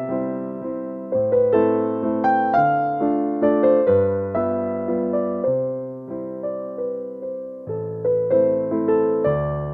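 Background music: a gentle piano melody, struck notes in an even rhythm.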